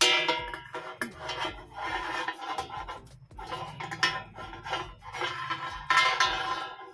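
Background music, with a hex key scraping and clinking against the nuts and the steel underside of a digital weighing scale's platform as the nuts are tightened.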